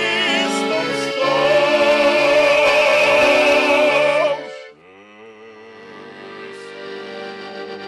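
A male vocal quartet sings in close harmony over a button accordion. The top voice holds a loud final chord with vibrato that cuts off sharply about four and a half seconds in, leaving quieter sustained accordion notes.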